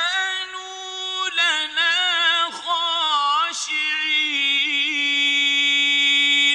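A man's voice chanting Quran recitation in the melodic tajwid style: a long drawn-out phrase with wavering ornamental turns, ending on a long held note that breaks off near the end with a short echo.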